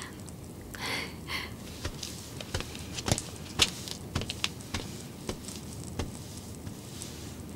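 Soft footsteps with the rustle of long dresses: a scatter of light, irregular taps.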